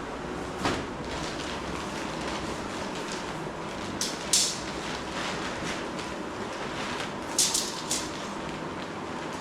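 Short rustles of nylon tent fabric being handled, a few crisp bursts about a second in, around four seconds in and near the end, over a steady background hum.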